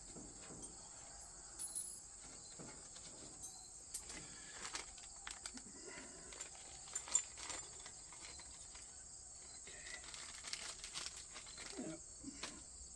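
Crickets chirping in a steady high drone, with scattered sharp clicks and light knocks from old chain parts being handled; the loudest click comes about four seconds in.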